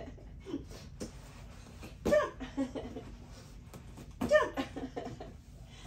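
Two short, high vocal sounds, each falling in pitch, about two seconds apart, with smaller voice fragments after each.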